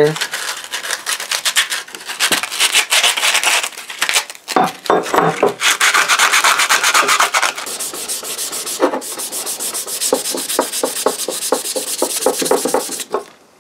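Sandpaper rubbed by hand on a one-pound steel axe head, drawn through the eye to smooth it, in quick back-and-forth strokes. There are a few knocks partway through, and the strokes stop shortly before the end.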